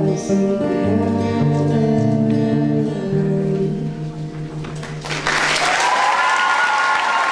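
A live musical performance ends on a held final chord. About five seconds in, the audience breaks into applause.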